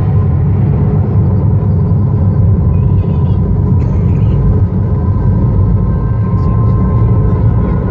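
Loud, steady low rumble from the light-and-sound show's soundtrack, with a faint held tone above it, played over loudspeakers.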